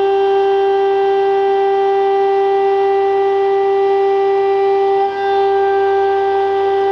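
Stone CNC router spindle whining at a steady high pitch as it cuts 15 mm marble, dipping briefly about five seconds in.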